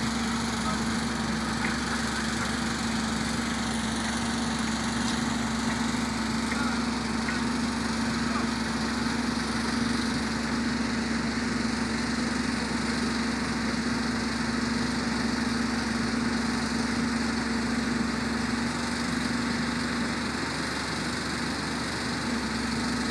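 Heavy diesel site machinery engine running steadily at constant speed, with an unchanging low hum.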